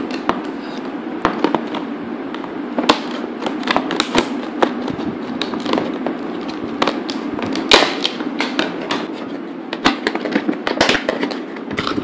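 Stiff clear plastic blister packaging being cut with scissors and pried open, crackling and snapping irregularly.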